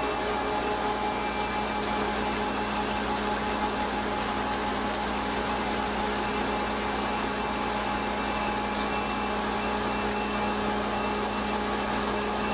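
Hensley Super Auger bulk feed trailer unloading, its augers and truck drive running: a steady mechanical hum with a constant low tone that does not change.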